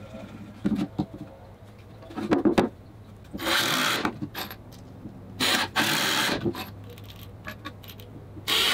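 Cordless drill driving screws into stacked 2x4 boards, in three short runs of under a second each, roughly two seconds apart. A few knocks of wood on the bench come before the first run.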